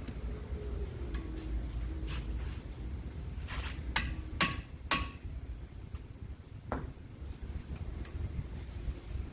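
Hammer blows on a hand impact screwdriver to break loose seized Phillips screws. A few sharp metallic strikes ring out around the middle, the two loudest about half a second apart, with a weaker knock a couple of seconds later.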